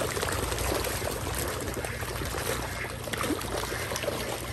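Water churning and splashing as a dense crowd of large fish jostles at the surface for floating popcorn, a steady patter of many small splashes.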